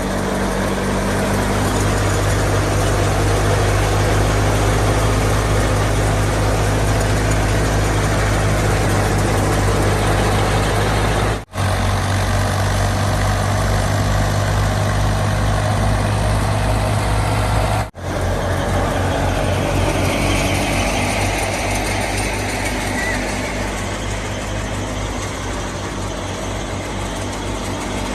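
Fiat 480 tractor's diesel engine running steadily, belt-driving a wheat thresher, with the thresher's steady mechanical rush over the engine's low drone. The sound cuts out for an instant twice.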